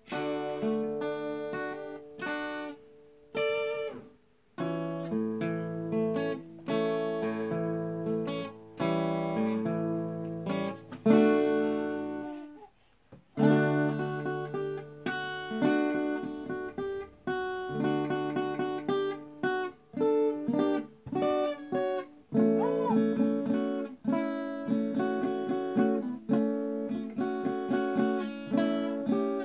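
Acoustic guitar played solo, chords and single notes picked in a slow running melody, with a few brief pauses, the longest about twelve seconds in.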